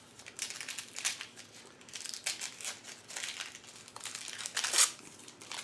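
Wrapper of a bar of handmade soap crinkling and rustling in irregular bursts as it is unwrapped, loudest near the end.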